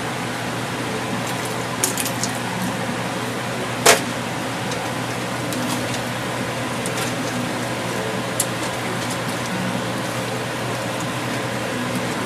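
A utensil stirring shrimp, spinach and tomato sauce in a wok, clicking against the pan a few times, with one sharper clack about four seconds in, over a steady background hum.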